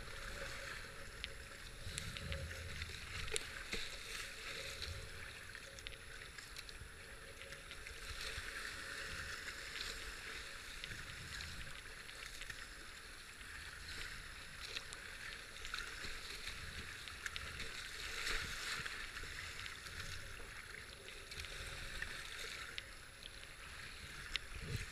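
A kayak paddled through river rapids: steady rushing and splashing of whitewater around the hull, swelling every few seconds as the paddle strokes and the bow push through the waves.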